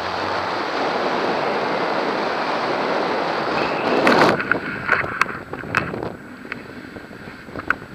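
Airflow rushing over the camera microphone in paraglider flight, loud and steady for about four seconds. It then drops to a lighter rush broken by a few sharp clicks and taps.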